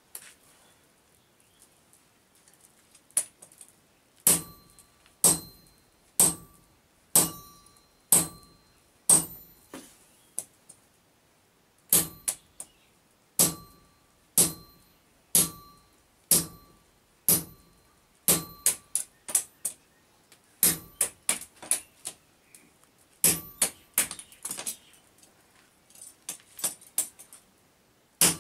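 Hammer blows striking a steel punch set on a red-hot axe-head blank on an anvil, each blow a sharp metallic clang with a short ring. The blows start a few seconds in at about one a second and come faster, in quick pairs and clusters, in the second half.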